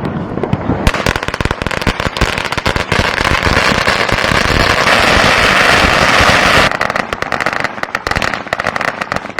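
A 16,000-shot firecracker string ("thunder bomb") going off in a dense, rapid crackle of bangs. It thickens about a second in and thins to scattered pops over the last few seconds.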